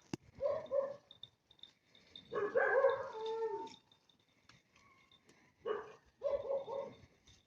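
Goats bleating: a few short bleats and one longer wavering bleat that lasts more than a second.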